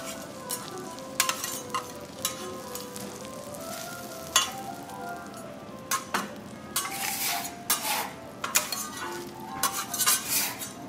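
Food sizzling on a teppanyaki iron griddle, with metal spatulas clicking and scraping against the plate here and there.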